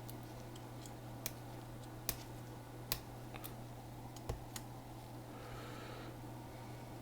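Scattered sharp clicks and taps of small tools and parts against a MacBook Pro as it is taken apart to remove its logic board, with a brief scrape near the end, over a steady low hum.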